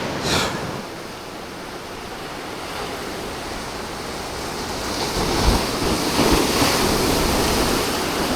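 Ocean surf washing onto the beach with wind, the waves growing louder about halfway through, with a few low thumps of wind buffeting the microphone.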